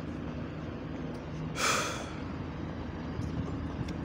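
Diesel bus engines idling with a steady low drone, broken by one short hiss of air about one and a half seconds in.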